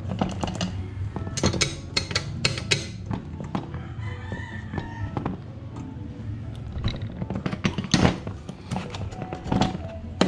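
Scattered sharp metallic clicks and clinks of a bolt, nut and wrench being handled against an aluminium bike rack bracket, with a drawn-out call about four seconds in.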